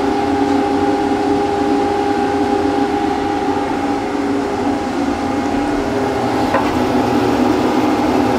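Bandsaw running with no wood in the cut: a steady motor and blade hum with several constant tones.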